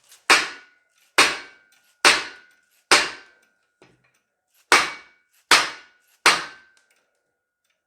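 Hammer striking metal seven times, about once a second with a short pause after the fourth blow, each strike ringing briefly: tapping to free a stuck main bearing cap from the Datsun L18 engine block.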